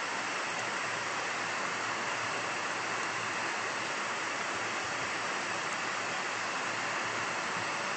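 Steady, even hiss of background noise picked up by the recording microphone, with nothing else standing out.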